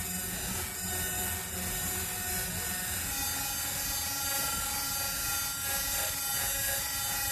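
Live rock band playing a steady, noisy drone of amplified guitar and held tones through the PA, with no clear beat.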